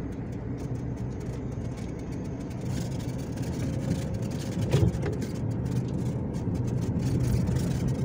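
Car engine running steadily as the car drives slowly over a rough mud-and-stone dirt road, with one short bump about five seconds in.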